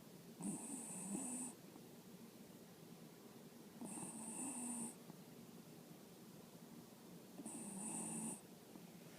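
Little snores from a sleeper: three snores about three and a half seconds apart, each about a second long, with a high whistling hiss on each breath.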